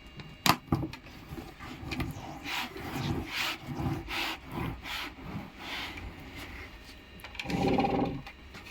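Hand work on a 32-inch loudspeaker being reconed: a sharp knock about half a second in, then a run of rubbing and scraping strokes as the parts are worked into place. Near the end there is a short pitched sound.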